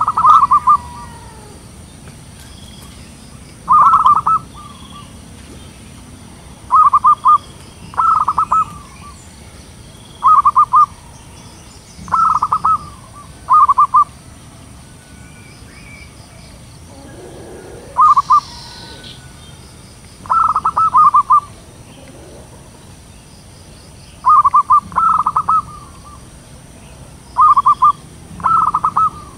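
Zebra dove cooing: short, rapid, stuttering trilled coos, each about half a second, repeated every few seconds and sometimes two close together. Faint chirping of small birds runs underneath.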